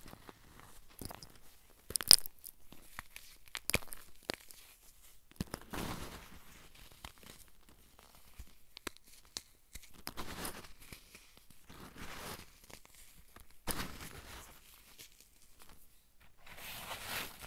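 Fingers crushing and crumbling a dried, chalky block of Fruity Pebbles 'comet dust': irregular gritty crunches and crackles of the material breaking into powder, the sharpest crack about two seconds in.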